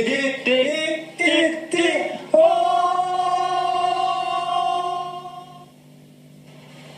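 Several men singing a short jingle a cappella in short notes, ending on one long held note that fades out a little before the six-second mark.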